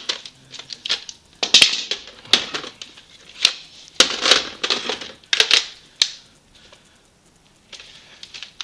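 Hard plastic Nerf blaster parts being handled: sharp clicks, scrapes and rattles as barrel and stock attachments are worked off and on the Modulus Recon Mk II and Retaliator, with a short pause before a few last clicks near the end.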